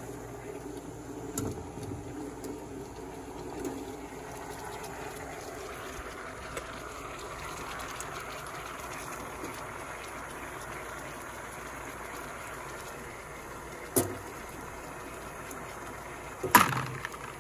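Water boiling in a wok with eggs in it: a steady bubbling hiss. Near the end a metal utensil knocks sharply against the pan twice, the second knock louder.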